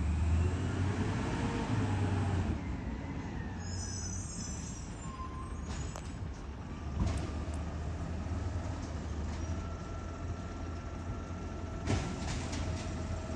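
Garbage truck engine running with a steady low hum, louder for the first couple of seconds, with a few sharp metallic knocks about six, seven and twelve seconds in.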